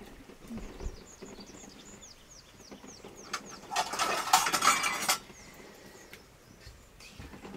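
Stainless steel dishes clattering together for about a second and a half, with a metallic ring. A run of faint, quick, high descending chirps comes before it.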